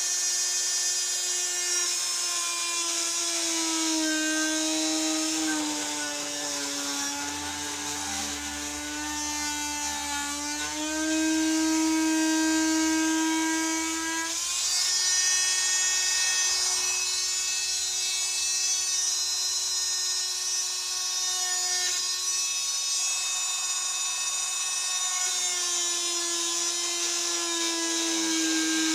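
Corded handheld power tool cutting holes in thin-wall 6-inch PVC pipe, its motor whining continuously. The pitch sags as it bites into the plastic, for several seconds in the middle and again near the end, and climbs back when the load eases.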